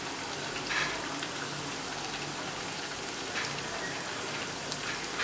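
Rice-flour and drumstick-leaf rotti deep-frying in hot oil in an iron kadai: a steady sizzle, with a few sharper bursts about a second in and again after three seconds as a metal slotted spoon stirs the oil.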